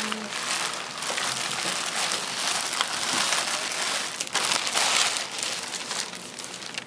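Plastic sheeting and a plastic bag crinkling and rustling continuously as gloved hands gather and handle them, loudest about five seconds in.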